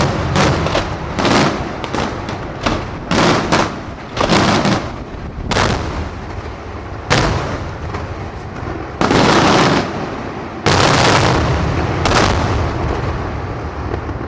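Aerial firework shells bursting in quick succession: about a dozen loud booms, irregularly spaced. Two longer, sustained blasts come around two-thirds of the way through, then the bursts die away near the end.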